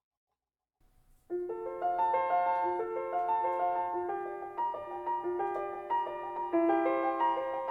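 Solo piano music starting about a second in after silence, a flowing line of notes in a slow, gentle tempo.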